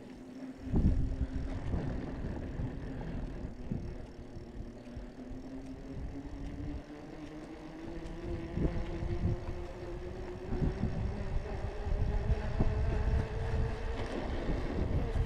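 Bicycle rolling along a paved path, recorded from the handlebars: uneven low rumble of wind buffeting the microphone, a few sharp knocks from bumps in the path, and a steady hum that rises slowly in pitch as the bike picks up speed.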